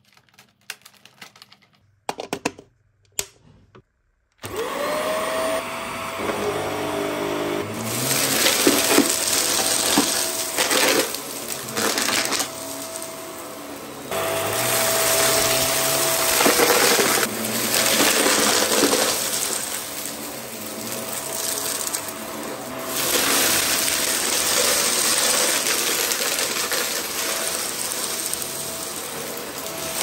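A few handling clicks, then about four seconds in a Vax Mach Air upright vacuum cleaner switches on, its motor whine rising quickly to a steady pitch. It runs on, louder and softer in turns as it is pushed back and forth over the carpet, with crackling as debris is sucked up.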